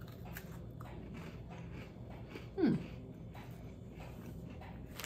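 Person chewing a crunchy chocolate sandwich cookie (a bourbon biscuit) with the mouth closed: faint, quick crunching clicks, and one short falling tone about halfway through.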